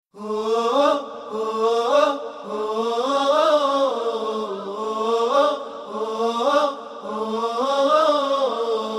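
A single voice sings a slow, drawn-out opening phrase with no percussion, its pitch swelling up and falling back on long held notes, broken by short pauses about every one to two seconds.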